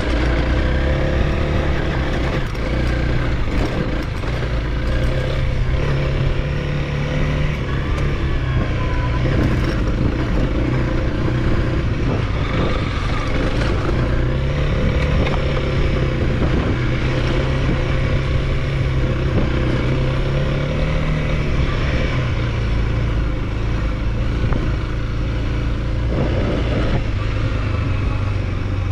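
Honda CRF300L's single-cylinder four-stroke engine running while riding, its pitch rising and falling gently with the throttle over a steady rush of wind and riding noise.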